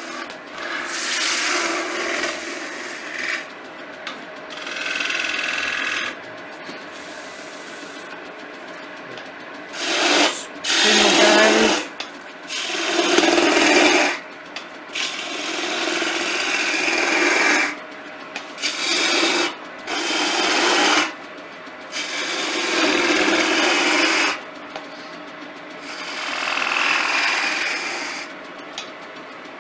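Hand turning tool cutting a spinning pine table leg on a wood lathe. About ten separate cutting passes of one to three seconds each sound over the lathe's steady running.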